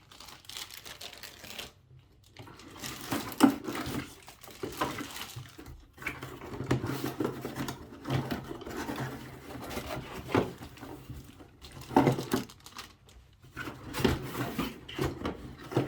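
Unboxing handling noise: packaging rustling and crinkling, with light clicks and knocks of plastic vacuum parts being taken out and set down, one sharper knock about three seconds in.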